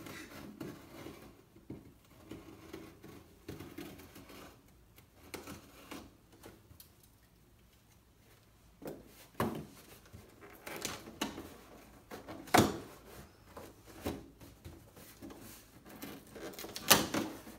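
A box cutter scraping and slicing through the packing tape on a cardboard shipping box. After a short pause there is a string of sharp knocks and thumps as the cardboard box is handled, with the loudest knock near the end.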